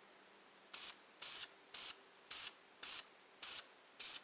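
Krylon camouflage aerosol spray paint can hissing in seven short, evenly spaced bursts, about two a second, starting just under a second in: quick dabs of brown laid down to add small camo details.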